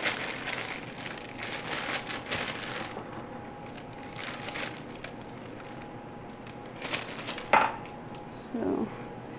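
Plastic bag of gluten-free baking mix crinkling as it is handled and the mix is scooped out and poured. Near the end there is one sharp knock of the glass measuring cup against the glass mixing bowl.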